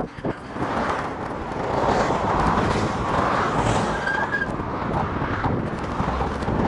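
Road traffic: cars driving by with a steady rush of tyre and engine noise, heard from a bicycle riding alongside them.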